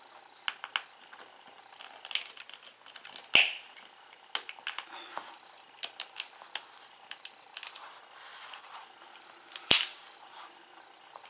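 Plastic case halves of a Sansa Clip+ MP3 player being pressed together by hand: scattered small clicks, and two loud sharp snaps, about three seconds in and about ten seconds in, as the case clips latch.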